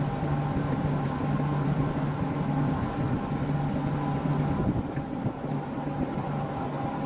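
Refrigeration outdoor condensing unit running with its newly replaced cooling fan motor: a steady machine hum with a few constant tones.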